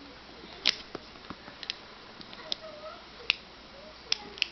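Rock Exotica ORCA Pirate carabiner's gate being worked by hand: a series of about six sharp clicks, the first the loudest, as the gate catches in its locked-open position and snaps back in.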